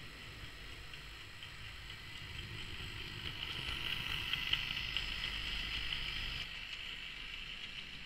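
Hornby OO gauge model of Stepney the Terrier tank engine, an old analogue (non-DCC) loco, running on track with a brake van in tow: a steady motor whir and wheel noise on the rails. It grows louder as the train passes close by about four seconds in, then drops off sharply a little after six seconds as it heads away round the curve.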